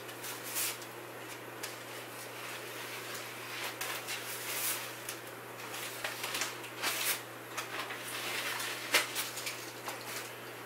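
Packing tape being slit with a knife and pulled off a cardboard box, in repeated short rasping rips and scrapes, over a steady low hum.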